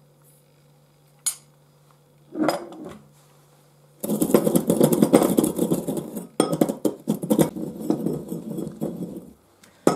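Brass pestle grinding mastic, mahlepi and sugar in a brass mortar: a fast run of metal scraping and knocking that starts about four seconds in and lasts about five seconds. Before it, a single light clink.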